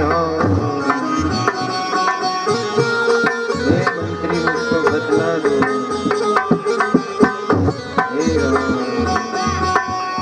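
Instrumental Indian music: hand drums play a quick rhythm under a melody instrument. This is the accompaniment between sung verses.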